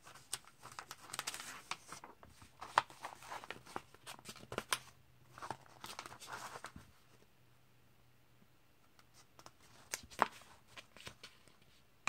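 Pages of a comic book being turned and handled: paper rustling and crinkling in spells of a second or two, with sharp snaps among them. A quiet pause follows, then a shorter spell of handling near the end.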